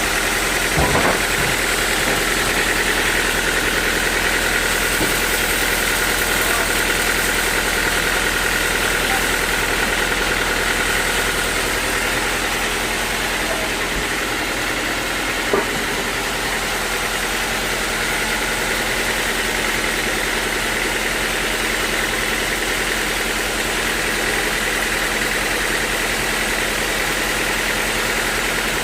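Sawmill machinery running steadily, a constant engine-like drone with a high whine, and a few short knocks, the loudest a little past the middle.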